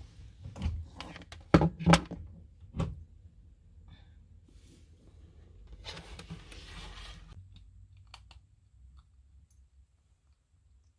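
Several sharp knocks and clicks, the two loudest close together about a second and a half in, then a soft rustle about six seconds in.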